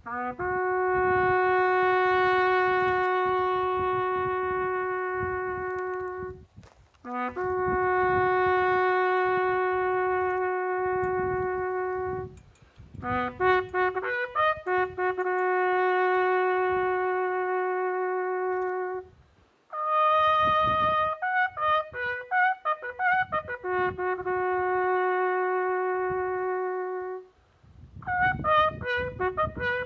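Solo brass instrument playing a slow call: long held notes, each led in by a short lower note, with quicker runs of notes in between.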